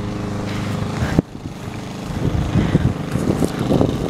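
A motor runs steadily with a constant hum. There is a sharp knock about a second in, and irregular rustling noises in the second half.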